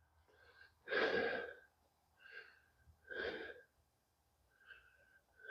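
A man breathing out heavily twice, close to the microphone, about a second in and again about three seconds in, with fainter breaths near the end.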